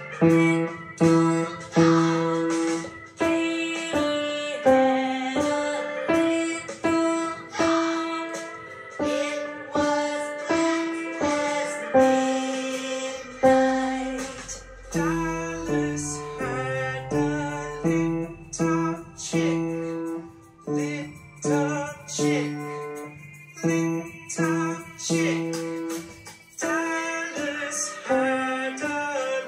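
Upright piano played at a steady pace, about two notes a second: a simple melody over repeated low notes, each note struck and left to decay.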